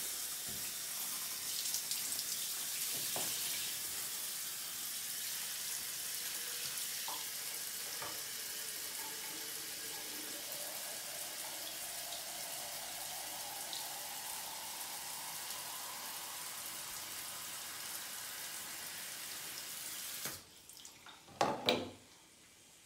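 Handheld shower head spraying water steadily, filling a plastic squeeze bottle, the pitch of the filling rising slowly as the bottle fills. The water cuts off suddenly near the end, followed by a few knocks.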